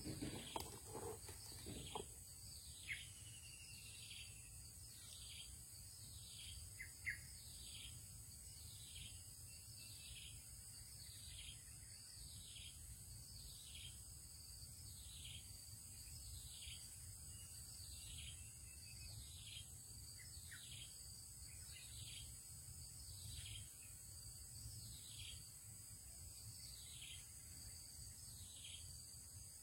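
A short, high animal call sliding down in pitch, repeated steadily about once a second, over a constant high drone of insects. A few faint knocks in the first two seconds.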